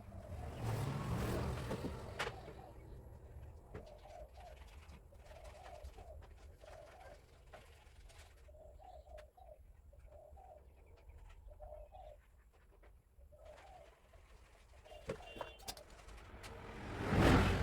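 A dove cooing over and over in short phrases. A louder rushing noise comes in briefly near the start and again near the end.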